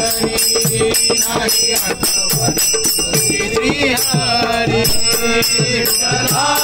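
Live devotional bhajan: small brass hand cymbals (taal) clash in a steady quick beat over a pair of hand drums whose bass strokes slide down in pitch, with men's voices singing along and the group's chant swelling in near the end.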